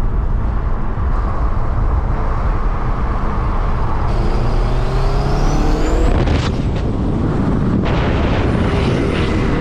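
Car engine and road noise heard from inside a moving car's cabin. About halfway through, the engine note climbs as the car accelerates.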